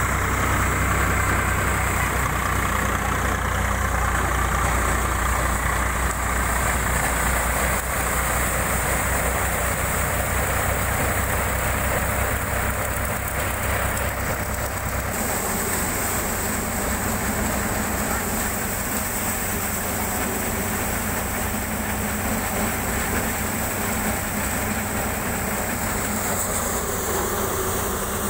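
Diesel tractor engine running steadily, powering a paddy threshing machine. About halfway the deep engine hum drops back and a steady higher hiss from the threshing drum comes forward as rice stalks are fed in.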